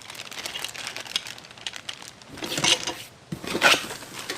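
Packaging being handled: rustling and crinkling with small clicks and knocks of parts, in irregular bursts, the largest about two and a half and three and a half seconds in.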